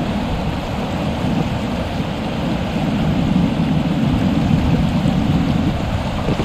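River water rushing steadily over a rocky streambed.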